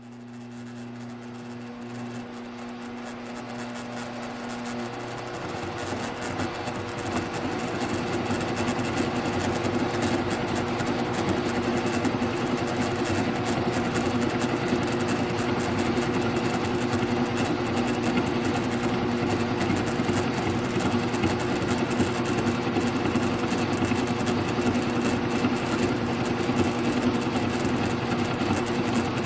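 Milling machine running, its end mill cutting a flat on a steel push rod held in the vise: a steady machine hum that grows louder over the first several seconds, then holds steady.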